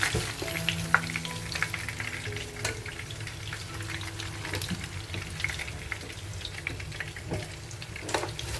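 Dồi sụn (pork cartilage sausage) frying in hot pork fat: a steady sizzle with scattered crackles and pops.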